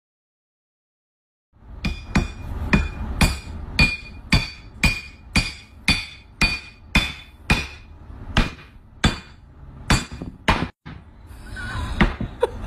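A glass liquor bottle used as a hammer, struck down again and again on a block of wood: about two sharp knocks a second, each with a short glassy ring. The strikes begin about a second and a half in and grow sparser after about ten seconds.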